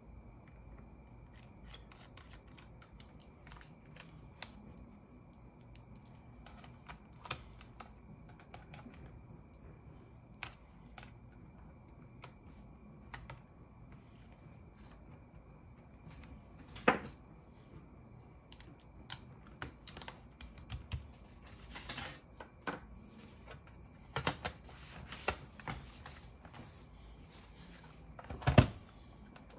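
Irregular small clicks and taps of hand work on a laptop at a repair bench, growing denser in the last third, with a louder knock a little past halfway and another near the end. A faint steady high whine runs underneath.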